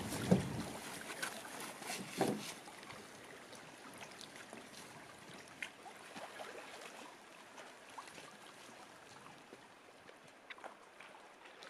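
Canoe being paddled: a few soft paddle strokes and faint water sounds, with wind rumbling on the microphone in the first second before it settles to a quieter hiss.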